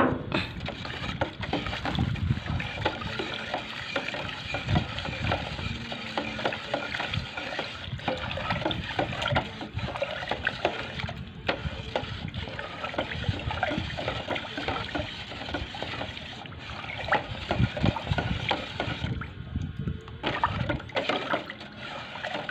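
Wooden stick stirring catalysed epoxy primer thinned with lacquer thinner in a metal paint can: the liquid swishes and the stick knocks irregularly against the can. The stirring eases off briefly near the end.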